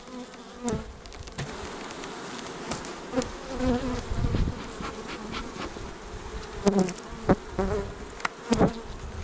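Honey bees buzzing over an open hive, with single bees flying close past in short buzzes. A few sharp clicks and knocks of a metal hive tool against the wooden frames, the loudest in the last couple of seconds.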